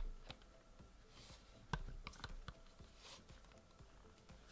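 Quiet handling of a Shure MV51 microphone and its clip-on pop filter as they are fitted together: a few soft clicks and knocks of plastic and metal parts, the loudest just under two seconds in.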